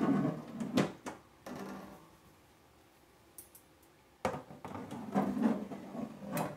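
A metal wire rack being slid into the shelf brackets of a SteakAger dry-aging unit: scraping and rattling with a sharp click about a second in, a quiet pause in the middle, then the rattling and scraping start again suddenly.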